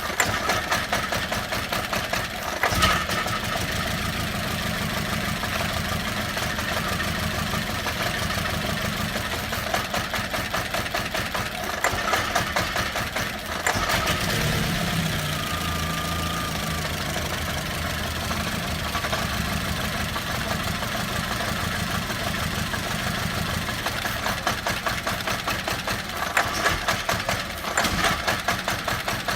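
VW Beetle 2.0 petrol four-cylinder engine running roughly with a fast, uneven beat. It is misfiring, intermittently running on as few as one cylinder. Its low note shifts a few times, at about 3, 14 and 24 seconds in.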